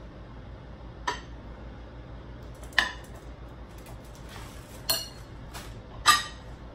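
Ceramic plates and a utensil clinking against each other and the stone counter: four sharp clinks a second or two apart, the last two the loudest, over a low steady hum.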